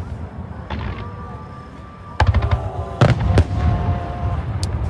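Aerial fireworks shells bursting: a quieter stretch, then a cluster of sharp bangs and deep booms from about two seconds in, with more bursts a second later.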